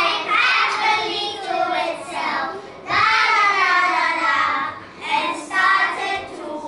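A group of children singing together in unison, with a long held, wavering line about three seconds in.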